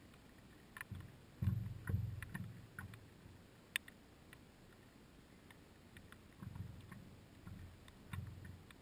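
Water slapping and knocking against a stand-up paddleboard's hull as it is paddled, in two runs of low thumps, with scattered sharp clicks in between.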